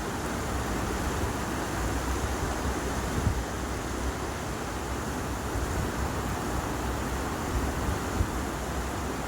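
Steady rushing of flowing river water, with low wind rumble on the microphone.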